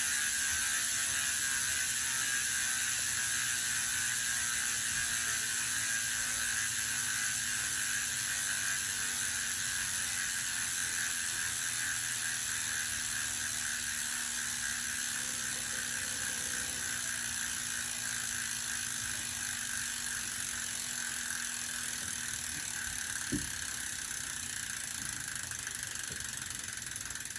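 Speedone Soldier bicycle rear hub freewheeling, its pawls ratcheting in a fast, steady buzz of clicks as the wheel coasts, slowly fading as the wheel spins down.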